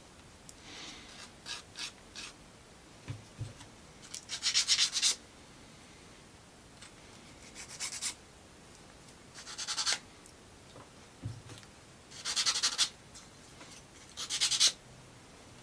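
Quick rasping rubs on small plywood model parts, in about five short bursts of rapid back-and-forth strokes, with a couple of soft knocks between them.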